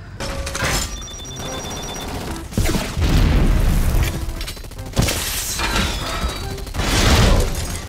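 Action-film soundtrack: heavy blasts and explosions over dramatic music, with sudden hits about two and a half and five seconds in. A short steady high electronic tone sounds about a second in.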